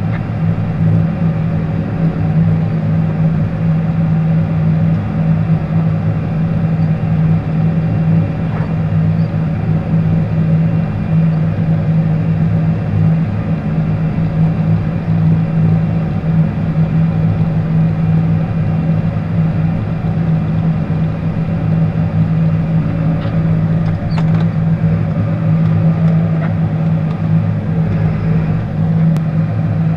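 John Deere tractor's diesel engine running steadily under the load of plowing snow, heard from inside the closed cab, with a few faint clicks about three quarters of the way through.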